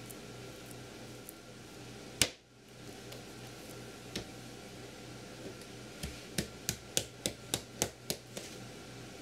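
Clay being slammed and struck on a wooden work table while making slabs: one loud smack about two seconds in, a softer hit a couple of seconds later, then a quick run of about nine sharp strikes, about four a second, in the last third.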